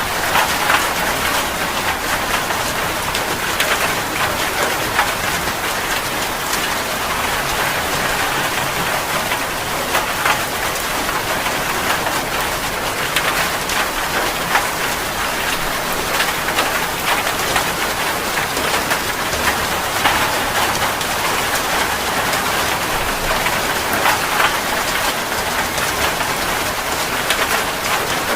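Heavy rain falling steadily, with many individual drops spattering on a surface.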